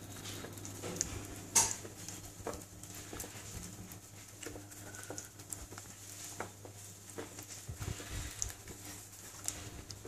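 Wire whisk stirring thick chocolate cake batter in a glass bowl, its wires tapping and clicking lightly and irregularly against the glass.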